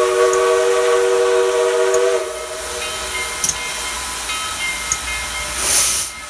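Steam locomotive chime whistle sounding a long multi-note blast that cuts off about two seconds in, its lowest note trailing on a little longer, over a steady hiss of steam. Near the end a brief louder hiss swells and drops away.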